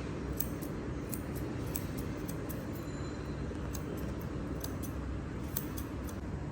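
Pet nail clippers snipping a cat's claws: a series of sharp, irregular clicks over a steady low hum.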